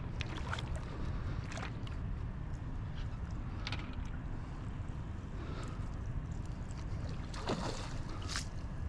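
A big hooked mirror carp thrashing at the surface beside a landing net, giving several separate splashes, the loudest near the end. Steady wind rumble on the microphone underneath.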